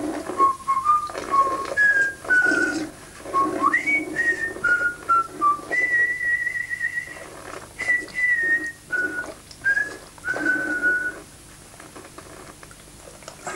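A person whistling a tune: a string of notes that step up and down in pitch, with one long held note about six seconds in. The whistling stops about eleven seconds in.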